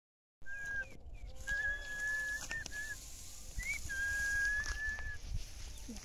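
A series of long whistled notes held at one high pitch, with a short rising note in the middle, over a low wind-like rumble.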